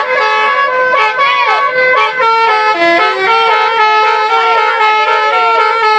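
Indonesian bus telolet horn, a multi-tone musical air horn, playing a tune: several notes sounding together and changing in quick steps, with swooping notes mixed in.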